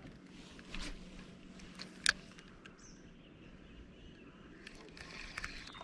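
Quiet outdoor background with a faint steady hum, a few light clicks, and one sharper tick about two seconds in.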